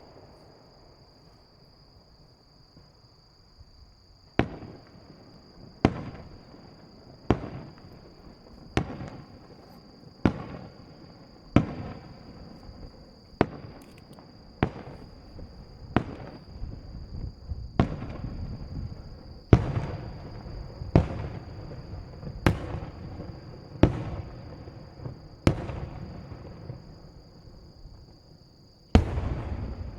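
Aerial firework shells of a starmine barrage bursting at a distance, a sharp bang roughly every second and a half, each followed by a long rolling echo; the bangs begin about four seconds in, and a heavier burst comes near the end. A steady high whine runs underneath.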